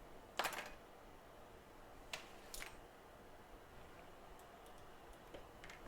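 A few faint, sharp clicks and taps of small tools and parts being handled on a repair bench, the loudest about half a second in.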